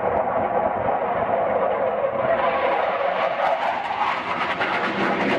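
Hawker Hunter jet's engine roaring as it flies over, a steady rushing roar that turns brighter and harsher from about halfway through as the jet passes close overhead.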